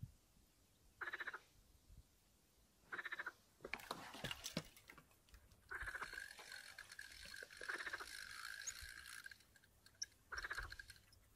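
Frogs croaking: short, rattling croaks of about half a second, repeating roughly every two seconds, with a longer stretch of croaking from about six to nine seconds in. A few sharp clicks and knocks come about four seconds in.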